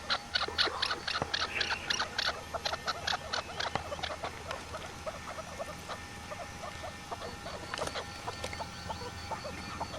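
Rapid, short, high-pitched squeaks from small animals, packed close together for about the first four seconds and then sparser and softer.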